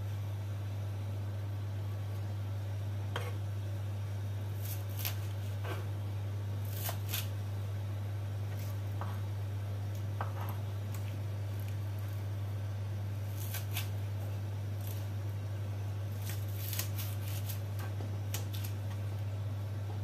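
A steady low hum, with scattered faint clicks and light taps at irregular moments.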